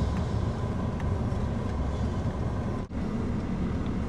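Car interior noise: a steady low rumble of engine and road heard from inside the cabin, with a brief cut-out about three quarters of the way through.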